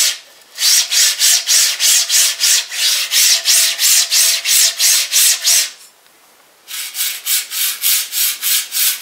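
Miniature MGN9-size linear guide carriages pushed rapidly back and forth by hand along their rails, each stroke a rasping hiss of rolling balls, about three strokes a second. The first run is a pair of Robotdigg carriages on aluminium extrusion, whose noise the builder is not happy with. After a brief pause, about seven seconds in, a single Hiwin carriage is run the same way, a little quieter.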